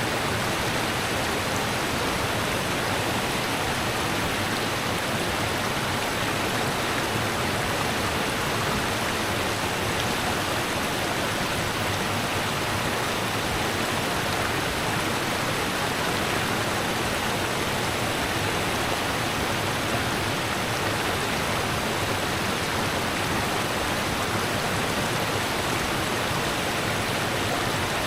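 Rushing river water running in a steady, unbroken rush.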